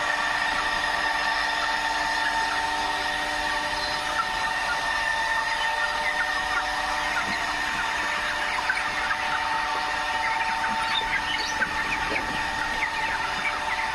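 A flock of broiler chickens, about four weeks old, peeping and chirping over a steady mechanical whine. The chirps grow busier in the second half.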